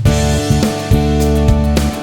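Background music: steady guitar-led instrumental with plucked strings and a regular beat.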